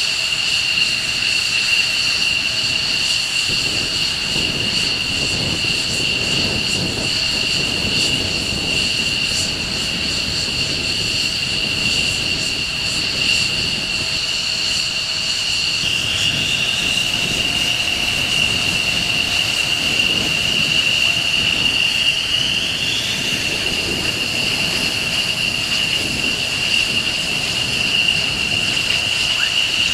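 F-16 fighter jets taxiing, their turbofan engines giving a loud, steady high-pitched whine over a low rumble. About halfway through the whine's pitch shifts, with a short rise a few seconds later.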